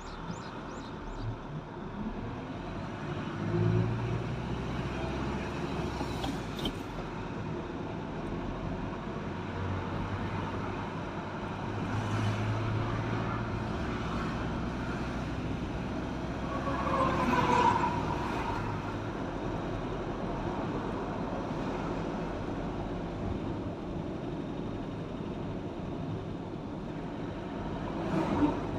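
A vehicle driving on a road: steady engine hum and tyre and road noise, swelling louder briefly around two-thirds of the way through.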